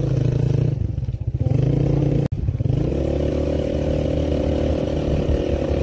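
Small motorcycle engine running steadily at low speed, with a sudden short break about two seconds in.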